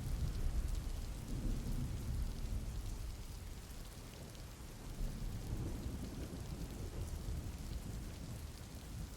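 Steady rain hissing, with low rolling thunder rumbling underneath that swells near the start and again about halfway through.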